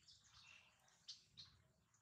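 Near silence: faint outdoor ambience with a couple of faint, short high chirps a little over a second in.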